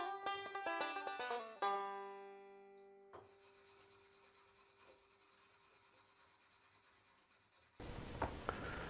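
Background music of quick plucked-string notes that ends on a held chord ringing out and fading about two to three seconds in, then near silence; near the end, faint room noise with a few soft clicks.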